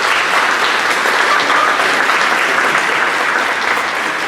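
Audience applauding steadily in a large hall, many hands clapping at once.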